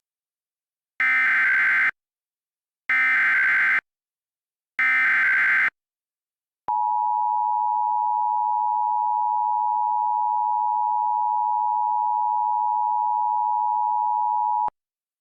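Emergency Alert System header and attention signal: three identical bursts of SAME digital header data, each about a second long, followed by the steady two-tone attention signal (853 and 960 Hz) held for about eight seconds and cut off abruptly, announcing an incoming warning.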